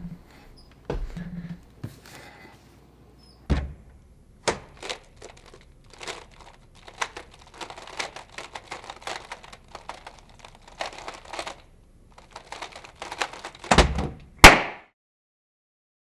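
GAN356 X plastic speedcube being turned fast: a dense run of sharp plastic clicks as the layers snap round, ending with a few louder knocks as the solve finishes. A few scattered knocks come before the run starts.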